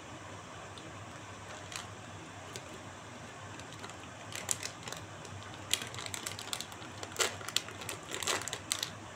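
Irregular sharp clicks and crackles, starting about four seconds in and coming thick toward the end, over a steady background hiss.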